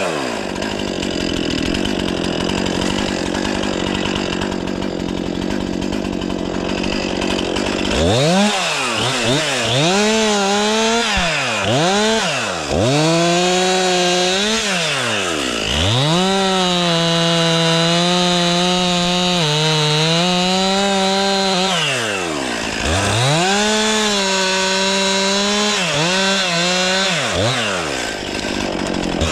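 Stihl 500i two-stroke chainsaw running steadily for the first several seconds. It is then revved up and down over and over, its pitch rising and falling with each throttle pull and held high for a few seconds at a time.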